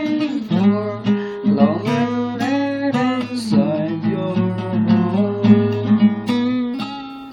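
Acoustic guitar strummed and picked, an instrumental passage of a song; the sound eases off near the end.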